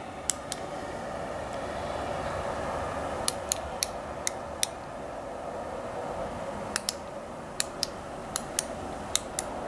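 Push-button of a click-pen liquid eyeliner being pressed over and over to pump the liquid down into the brush tip: sharp clicks, often in pairs, over a steady background hiss.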